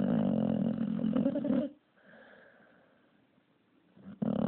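American Staffordshire Terrier snoring loudly: a long, rasping snore of about a second and a half, a quiet breath, then a second snore starting near the end.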